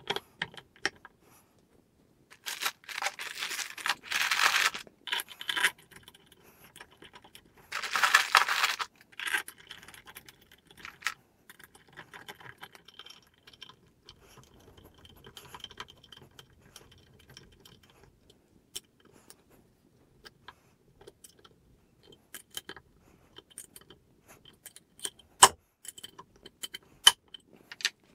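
Hand assembly of aluminium CNC parts: small metal parts and screws clinking, tapping and being handled. There are two longer bursts of handling noise in the first ten seconds, then scattered clicks and taps, with one sharp click near the end.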